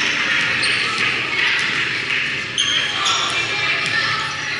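Basketball game sound in an echoing gym: a ball being dribbled on the hardwood court, short high sneaker squeaks, and the voices of players and spectators.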